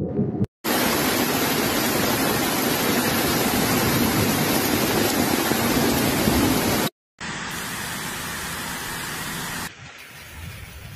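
Floodwater rushing in a loud, steady, even stream. It is broken by two abrupt cuts into three stretches, and the last stretch is quieter.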